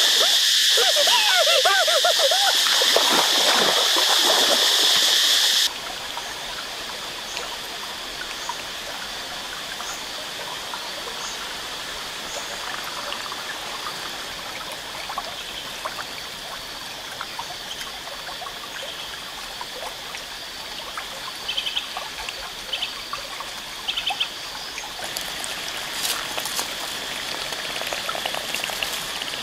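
Shallow stream water trickling steadily, with faint scattered clicks and a few short high chirps. It opens with about six seconds of much louder water noise and a voice shouting, which cut off suddenly.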